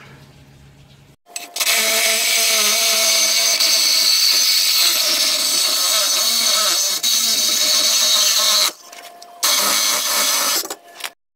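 Milwaukee cordless power tool cutting through a rusted exhaust pipe to take off the old muffler, with a steady whine under the noise. It runs for about seven seconds, stops briefly, then cuts again for about a second and a half.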